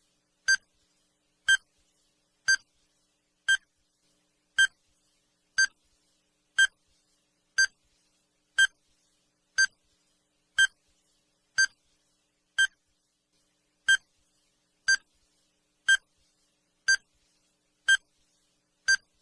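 Countdown timer beeping: a short electronic beep once a second, nineteen times, ticking off the last seconds to zero.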